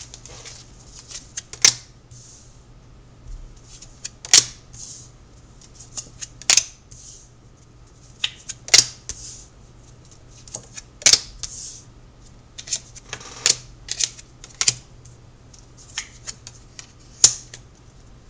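A tarot deck being handled and shuffled by hand: sharp card snaps and taps at irregular intervals, with soft rustling between.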